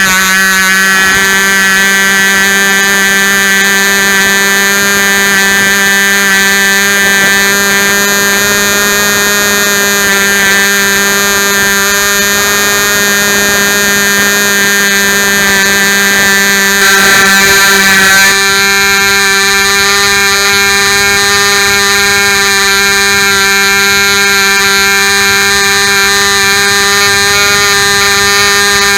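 Royal Spitfire .065 model airplane engine running flat out with a loud, steady, high-pitched buzz. It briefly gets louder about two-thirds of the way through.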